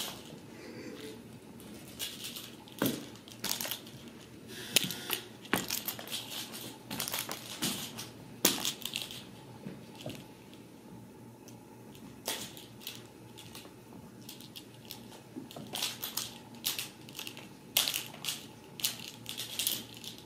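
Ragdoll kittens scampering, wrestling and pouncing on a carpet close to the microphone: irregular scuffles, rustles and soft thumps of paws and bodies, some in quick clusters.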